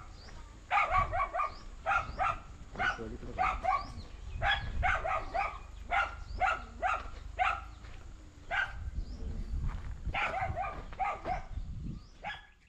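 A dog barking over and over in quick short barks, several a second, with a brief pause about two-thirds of the way through.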